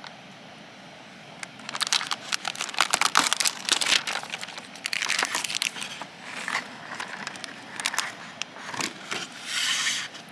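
Irregular crinkling and rustling handling noise, a dense run of small crackles starting about a second and a half in and cutting off suddenly near the end.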